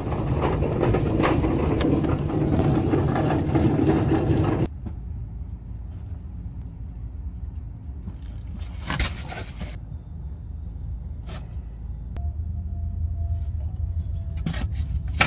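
Car noise: a few seconds of loud, even driving noise that cuts off suddenly, then a quieter low rumble with a few scattered knocks and clunks.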